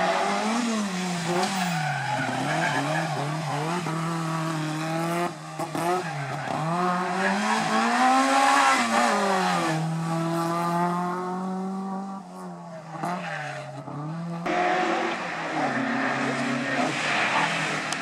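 Historic rally cars at full effort on a tarmac stage, engines revving hard and rising and falling in pitch through gear changes and lifts as they pass close by. The sound changes abruptly twice, about five seconds in and near fifteen seconds, as one car's pass gives way to the next.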